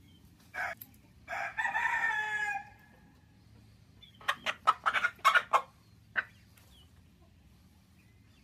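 A rooster crows once. A few seconds later comes a quick run of sharp, loud clucks and one last cluck.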